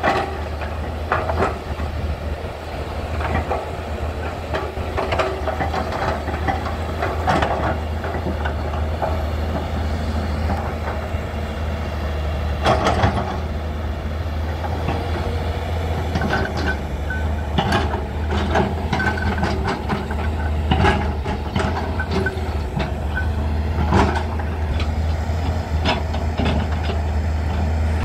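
Hyundai 210-7 crawler excavator's diesel engine running steadily under digging load, with irregular clanks and knocks from the steel bucket working wet soil.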